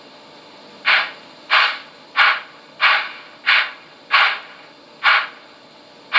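Sound decoder of a Trix SNCF class 241 A model steam locomotive playing steam exhaust chuffs through its small speaker while the model runs slowly: seven hissing chuffs, about one every two-thirds of a second.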